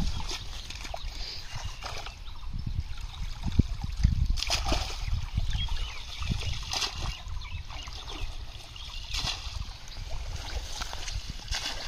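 Water splashing and sloshing as a cast net is dunked and lifted in shallow, muddy pond water, with four short splashes about two and a half seconds apart.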